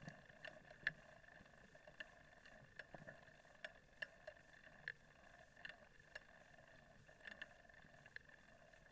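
Faint footsteps and light knocks on a dirt forest trail, irregular, about one or two a second, over a steady faint high hum.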